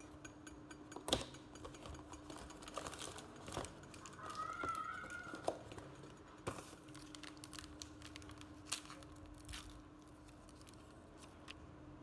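Faint crinkling and rustling of a cardboard instant-coffee box and foil sachets being handled, with a few light taps and clicks and a brief wavering squeak near the middle, over a faint steady hum.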